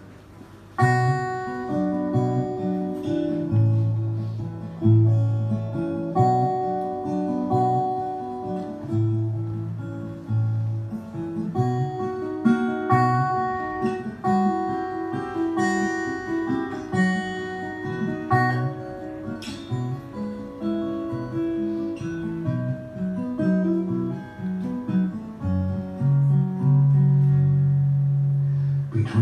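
Acoustic guitar playing an instrumental introduction in picked notes, getting louder about a second in.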